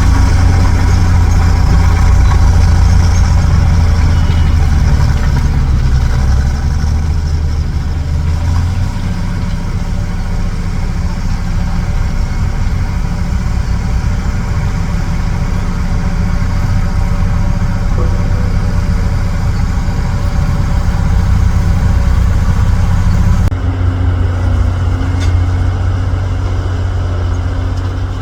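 Heavy dump truck's diesel engine running steadily at low revs. The sound changes abruptly near the end.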